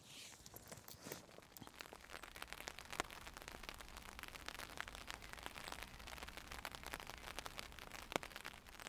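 Light rain pattering: a dense, even scatter of small drop ticks.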